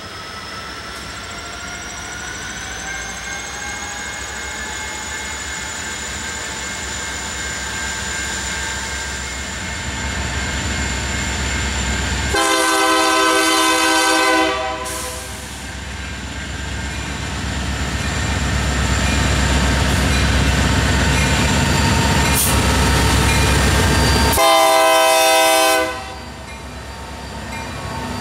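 Union Pacific diesel locomotives running and drawing closer, their engine sound rising in pitch in the first few seconds. A multi-chime air horn sounds two long blasts of several notes at once, one about twelve seconds in and one about twenty-four seconds in.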